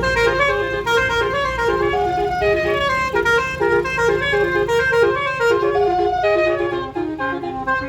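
Roof-mounted 12-note telolet horn playing a quick melody: short horn notes stepping up and down, several sounding together at times.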